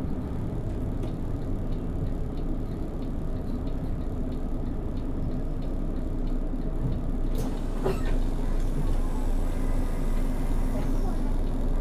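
Volvo B12BLE bus running, heard from the driver's side: a steady low rumble from its DH12E six-cylinder diesel, with a steady buzz from a faulty display. A faint ticking comes about twice a second, and there are two sharp clicks a little past halfway.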